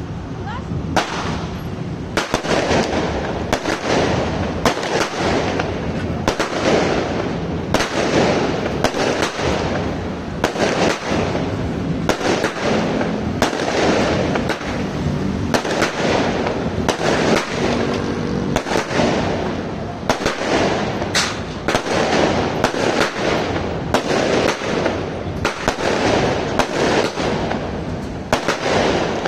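A 36-shot consumer fireworks cake firing in a steady sequence: a sharp report about every second, with the crackle and bursts of the shells filling the gaps in between.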